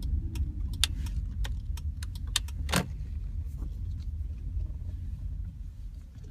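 Low, steady rumble of a 2004 Honda Civic Hybrid running, with scattered sharp clicks and one stronger click a little before halfway. It grows quieter near the end.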